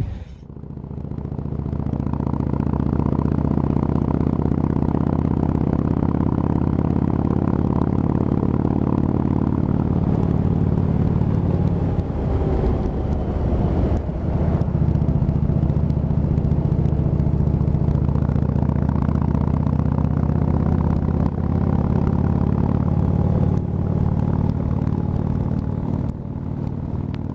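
Harley-Davidson Breakout's V-twin engine running on the road, a steady low exhaust note. It builds up in the first couple of seconds, eases off and picks up again about halfway through, and drops away near the end.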